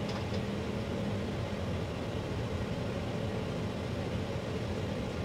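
Steady low background hum with a faint hiss: room tone, with no distinct event.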